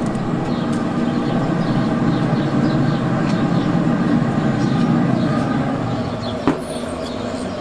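Heavy rain falling steadily, a dense rushing noise with a low rumble. A single sharp knock sounds near the end.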